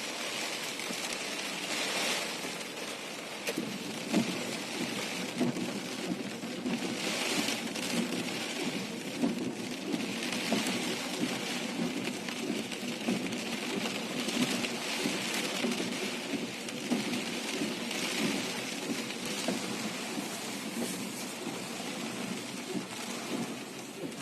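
Heavy typhoon rain pouring steadily, swelling and easing a little.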